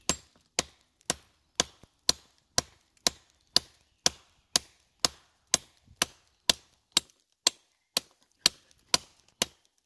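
Gil Hibben knife's steel blade chopping into a small tree trunk in a steady run of sharp strikes, about two a second.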